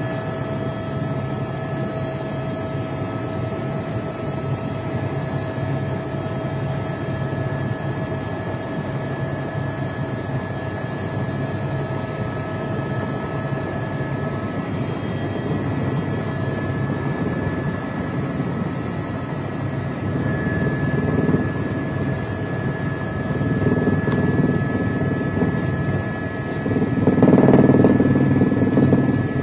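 Helicopter engine and rotors running steadily, heard from on board in flight: a constant drone with a few thin whining tones over it, growing louder for a couple of seconds near the end.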